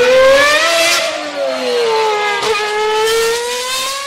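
Car engine revving hard, its pitch climbing, sagging and then dropping sharply with a click about two and a half seconds in, like a gear change, before climbing again.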